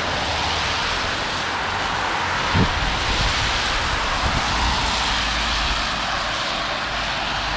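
Car tyres hissing on a wet road as traffic passes, the hiss swelling in the middle. A brief low thump about two and a half seconds in.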